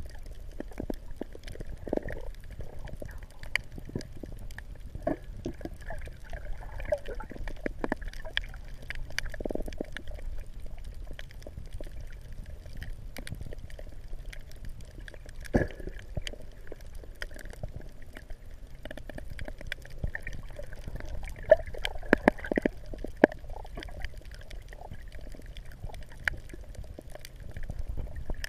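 Water sloshing and gurgling close to the microphone, over a low rumble, with many small scattered clicks and knocks and a few louder ones near the end.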